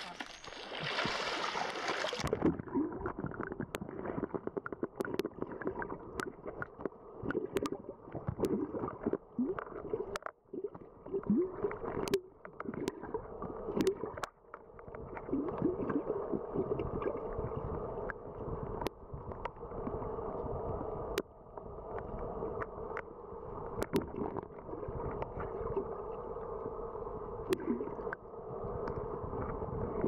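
Water splashing for about two seconds, then the sound turns muffled as the camera goes under the river's surface. Underwater there is a dull, gurgling rush with scattered sharp clicks.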